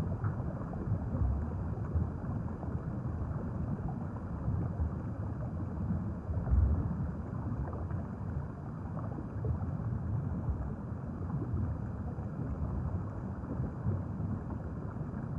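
Low rumbling wind and water noise from a boat out on open water, with a louder gust about six and a half seconds in.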